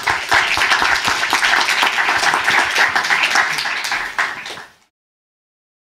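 Audience applauding with many hands clapping; the applause cuts off suddenly near the end.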